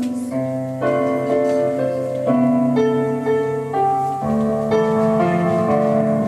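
Keyboard playing slow, held chords with a melody line on top: the instrumental introduction to a hymn, before the singing begins.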